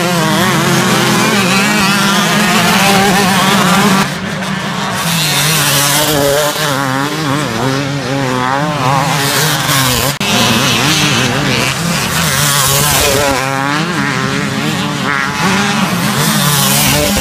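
Several two-stroke motocross bikes racing, their engines revving hard, pitch rising and falling as the riders work the throttle and shift. The sound changes abruptly about four and ten seconds in.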